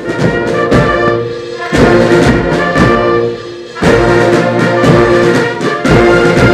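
Military brass band playing ceremonial salute music for the present-arms honours: loud sustained brass chords in phrases with drum beats.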